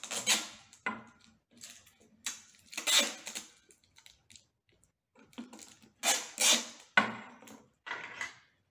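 Adhesive tape being pulled off its roll and wrapped around the joint between a PVC pipe and a flexible plastic water bottle, with handling of the pipe and bottle. It comes as a series of short, irregular pulls.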